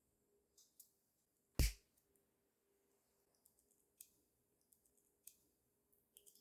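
Small, sharp clicks and ticks of handwork with jewelry-making tools and materials, with one louder knock about a second and a half in.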